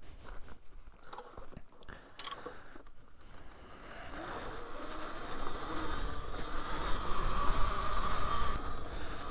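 Talaria Sting R MX4 electric dirt bike riding on a dirt trail: a few light clicks and crunches at first, then from about four seconds a steady motor whine and tyre noise that grow louder as the bike picks up speed.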